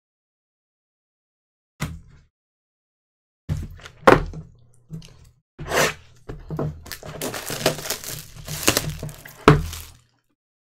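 Cardboard trading-card box handled on a tabletop. A few separate knocks and thuds come first, then about three seconds of rustling and scraping with small clicks, ending in a loud knock just before it stops.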